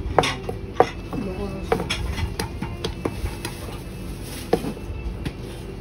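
Hands patting panko breadcrumbs onto a large raw menchi katsu (minced-meat cutlet) on a plastic cutting board, with scattered sharp knocks of a chef's knife against the board.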